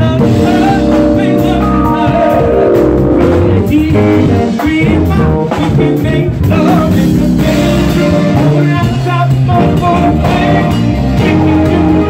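Live band playing an R&B-funk number, with keyboards played by hand over bass and drums and a voice singing along.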